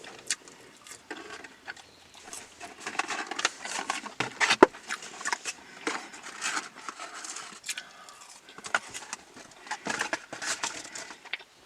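Close-up eating sounds: chewing and crunching with irregular clicks, smacks and crackles, a sharp click about four and a half seconds in.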